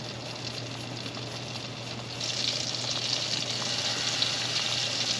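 Melted butter sizzling in a frying pan as fresh garlic is grated into it. The sizzle grows clearly louder about two seconds in.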